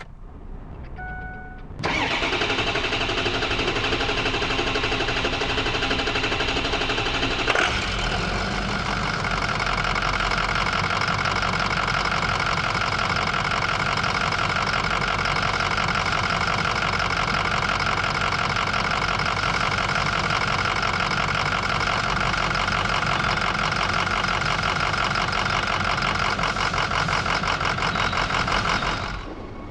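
2005 Ford F-250's 6.0L Power Stroke V8 turbo-diesel being started. The starter cranks for about six seconds before the engine catches, then it settles into an idle that is a bit rough. The long crank and the uneven idle are the hard-start and rough-running complaint being diagnosed.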